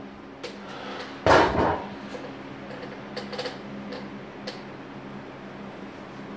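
A pot lid clattering against a pan on the stovetop: one loud clatter about a second in, then a few lighter clinks and a tick, over a steady low hum.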